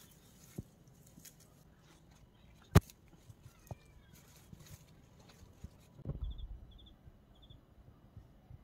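Faint rustling of plants and handling noise as cherry tomatoes are picked by hand, with one sharp click nearly three seconds in. Three short high chirps sound between about six and seven and a half seconds.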